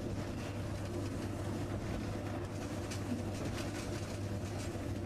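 Steady running noise in a moving locomotive cab with the side window open: a constant low hum under the even rumble of the train on the track.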